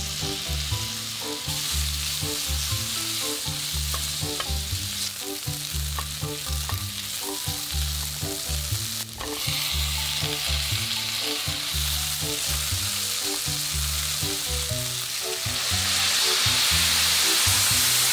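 Sliced onions, then chopped carrots, potatoes and broccoli sizzling as they are stir-fried in butter in a frying pan. Near the end the hiss grows louder as water is poured into the hot pan. Background music with a bass line plays underneath.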